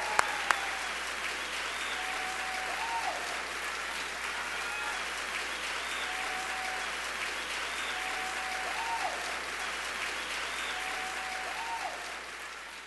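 Large audience applauding steadily, a dense patter of many hands clapping, with a few sharp clicks in the first half second; the applause fades out near the end.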